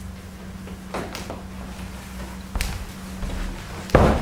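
Wooden picture frames knocking against each other as framed paintings are lifted and leaned against a stack: three short knocks, the loudest near the end.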